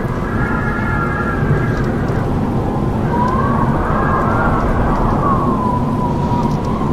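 Howling wind: a steady rush of noise with whistling howls that waver in pitch. For the first two seconds several howls sound together, then from about three seconds in a single howl rises and sinks.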